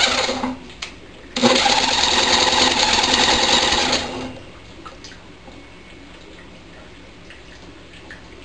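Electric drill spinning a small lawnmower engine over by its flywheel, in a short burst that stops about half a second in, then a second burst of about three seconds that cuts off. The engine does not fire on the HHO gas it is fed; the owner is unsure whether it gets too much air or not enough gas.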